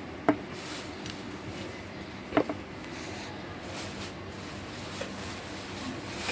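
Two sharp clicks or knocks about two seconds apart, the second followed by a smaller one, over a steady low background hum.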